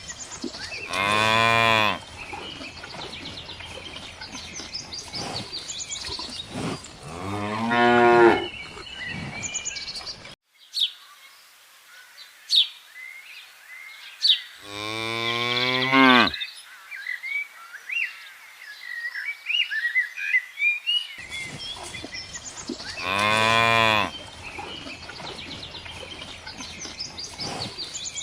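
Cows mooing: four long, separate moos spread out over the stretch, with faint bird chirps between them.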